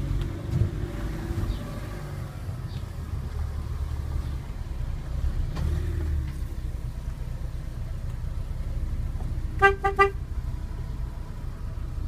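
A Fiat Panda's horn beeps three short times in quick succession about ten seconds in, over the steady low running of the car and road noise. The honks warn any oncoming car on the narrow one-lane road that one of them will have to pull aside.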